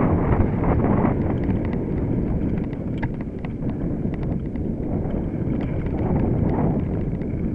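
Mountain bike riding down a rough dirt trail: a steady low rumble of tyres over the ground, with the bike rattling and many sharp clicks and knocks from bumps.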